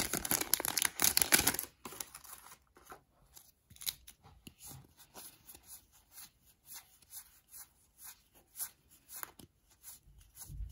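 Crinkly plastic packaging torn and crumpled for about the first second and a half. After that come scattered faint clicks and rustles of cards and wrappers being handled.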